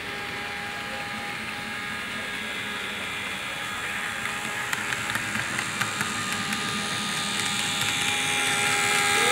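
HO scale model diesel locomotive running with its train of passenger cars, a steady humming drone with several held tones and a few light clicks in the middle, getting louder as it comes closer.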